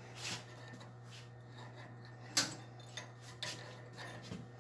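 Faint metal clicks and scrapes as a split tube cover is worked over the bottom of a chopper frame's down tube, a handful of light taps spread through, over a steady low hum.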